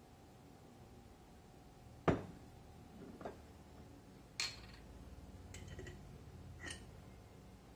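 Glass sauce bottles and a teaspoon handled on a kitchen counter: four separate knocks and clinks, the loudest a dull knock about two seconds in, then sharper clinks, the last one ringing briefly.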